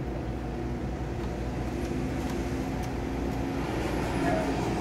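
Steady low hum of refrigerated drink vending machines running, with a faint click of a selection button being pressed about three seconds in.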